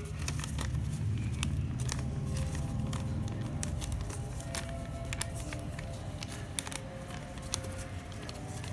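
Thin calendar paper being folded and creased by hand, crackling and crinkling with many small sharp clicks, over a steady low hum.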